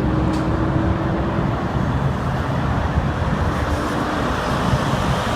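Steady highway traffic noise of semi-trucks and cars rushing past on the interstate, with a low steady drone that fades out about a third of the way in.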